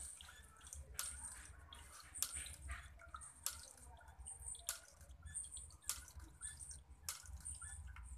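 Mini water-wheel fountain: water trickling and splashing from a bamboo spout over the wheel into the tub, with a sharp light tap about every second and a quarter and a low steady hum underneath.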